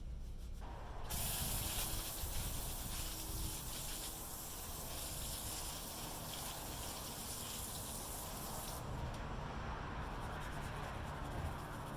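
A steady hiss of liquid spraying, starting about a second in. It eases near nine seconds into a duller rush of running liquid that carries on.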